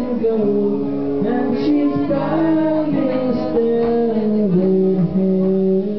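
A man singing live into a microphone, accompanying himself on acoustic guitar, with held notes and slow pitch steps.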